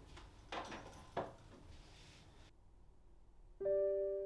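A few light knocks of kitchen handling, then a short silence, and about three and a half seconds in a piano-like keyboard starts playing held notes.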